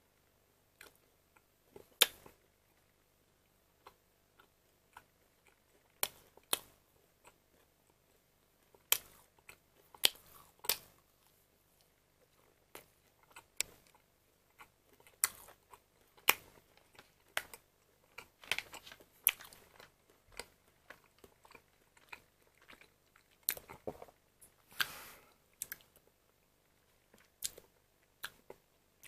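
Thin plastic salami packaging crinkling and crackling in irregular, scattered clicks as the pack and the slices are handled, thickest in two short spells in the second half.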